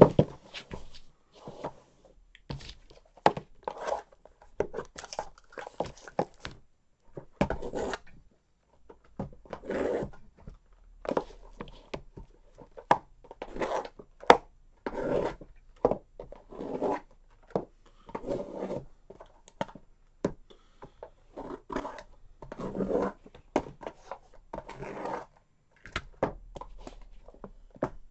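Sealed trading-card boxes being handled and their plastic wrap cut and torn open: a run of short, irregular crinkles, scrapes and tears with the odd knock of cardboard.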